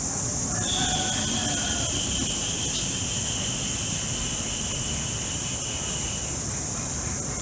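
Steady high-pitched insect chorus of crickets or cicadas. A thin, steady high tone joins it about a second in and fades out about six seconds in.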